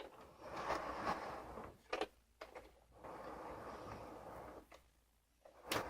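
Faint handling noises: two stretches of soft rustling, each about a second or more, and a few short sharp clicks.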